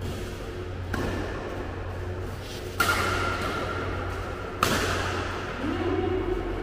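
Badminton rackets striking a shuttlecock in an echoing hall: a light hit about a second in, then two sharp hits nearly two seconds apart. A short voice near the end.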